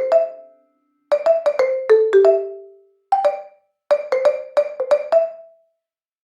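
Background music: a light melody of quick struck notes in short phrases, each note dying away fast, with brief silent gaps between the phrases.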